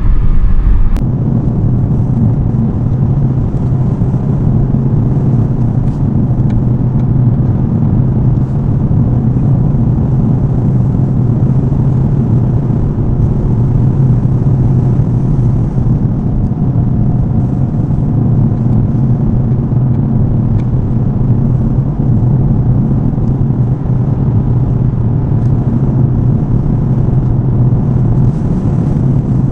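Steady road and engine rumble inside a moving car's cabin at highway speed. A short click about a second in, after which the noise settles a little lower.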